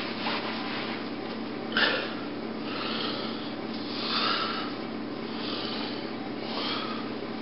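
Rustling and breath-like hissing over a steady low room hum, with a louder, sharper rustle about two seconds in and a few softer ones after.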